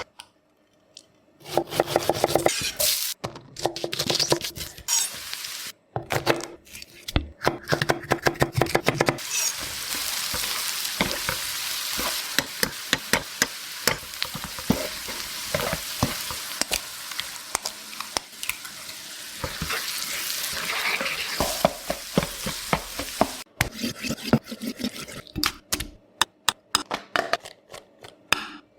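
Egg and chicken fried rice sizzling in a hot pan while a utensil stirs and clatters against it. In the first several seconds and again near the end come bursts of quick, regular clinking.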